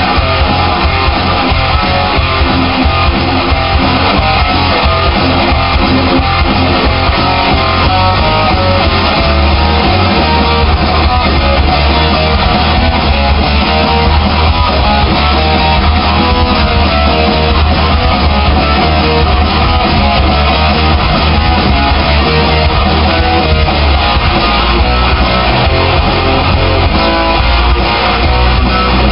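Electric guitar played in a rock style over a full band backing with a heavy, steady low end, continuous and loud. The sound is played back off a television and recorded from it, so the top end is cut off.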